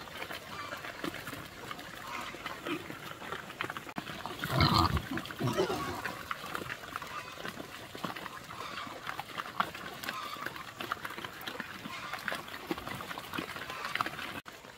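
Pigs grunting and moving about in a pen, with a louder grunt or squeal about four and a half seconds in and another shortly after.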